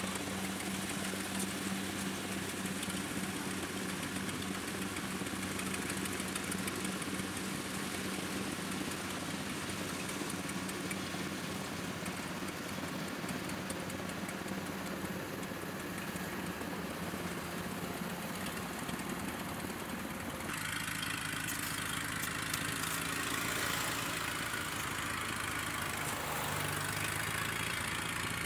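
Engine of a tracked rice-sack carrier running steadily as it crawls across the harvested paddy, loaded with about 80 sacks of rice. The engine note shifts about two-thirds of the way through.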